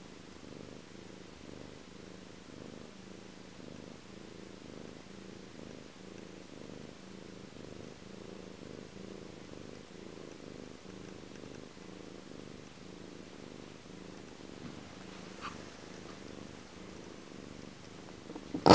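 A black-and-white domestic cat purring steadily and rhythmically, close to the microphone. One small click sounds near the end.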